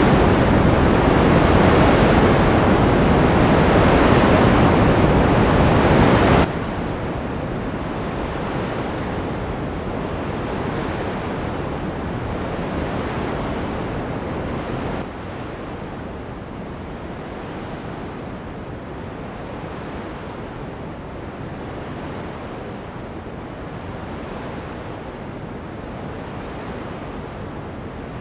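Ocean surf: a steady wash of breaking waves. The sound drops abruptly in loudness and brightness about six seconds in, and again, more gently, about fifteen seconds in.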